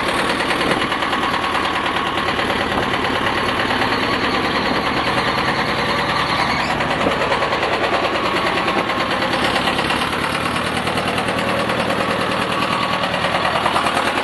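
T-25 tractor's two-cylinder air-cooled D-21 diesel idling with a rapid, even clatter, freshly rebuilt with new piston rings and restored cylinder heads. Through it runs a light tapping that the owner cannot yet place.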